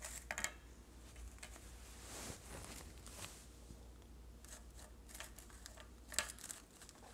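Faint rustling and light clicks from handling a small doll with an artificial-flower skirt and fitting it into a cloth-covered cardboard-tube stand, over a low steady hum that fades out near the end.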